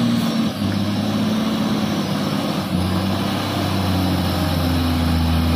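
Mitsubishi Fuso 220PS dump truck's diesel engine running hard under heavy load as the truck crawls through deep mud, its note dropping lower a couple of times as it labours.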